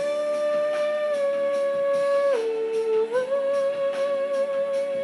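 Music: a single melody line holds a long note, drops to a lower note about two and a half seconds in, and slides back up a second later, over soft backing.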